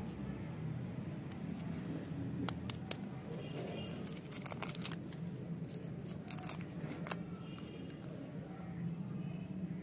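Crinkling and tearing of a foil-lined lollipop wrapper being torn open and peeled off by hand, in scattered sharp crackles with bursts a few seconds in and again in the middle. A steady low hum sits underneath.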